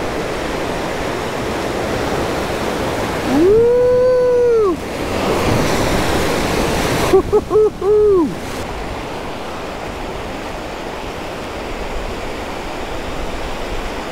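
Whitewater rapids rushing steadily around an inflatable raft. A person whoops, with one long "woo" about three seconds in and a quick run of short whoops around seven to eight seconds.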